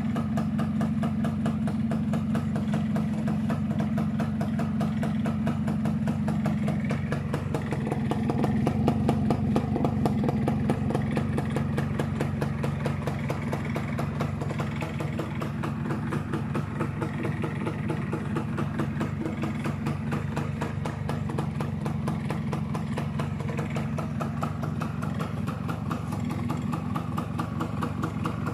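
Yamaha SS110 motorcycle's two-stroke single-cylinder engine idling steadily on the stand, running a little louder about eight to eleven seconds in.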